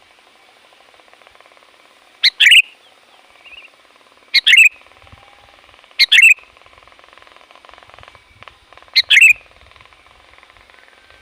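Sooty-headed bulbul (kutilang) giving short, loud calls, four in all, each a quick double note, spaced about two seconds apart over a faint steady hiss.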